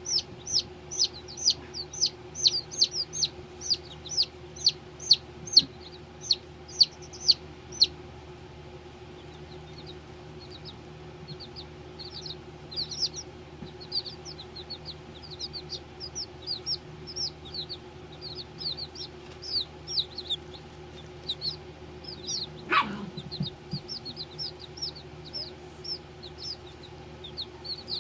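Baby chicks peeping: a run of loud, quick, falling cheeps for about the first eight seconds, then many softer overlapping peeps. A steady low hum runs underneath, and a single knock sounds late on.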